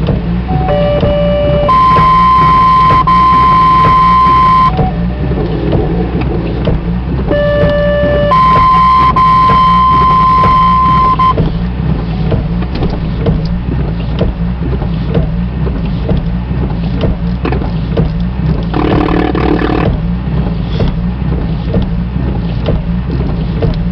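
Two-tone sequential fire paging tones over a scanner radio: a short lower tone followed by a long, steady higher tone of about three seconds, sent twice, alerting a fire/EMS company to a call. A steady radio hum and hiss runs underneath, with a brief burst of radio noise near the end.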